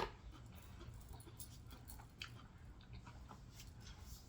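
Faint chewing and mouth sounds of someone eating fried catfish, with a sharp click right at the start and soft scattered clicks after it.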